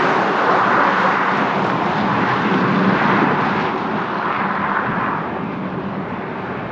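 Airliner engine noise as a plane passes close by: a broad rushing noise that gradually dulls and fades as the aircraft moves away.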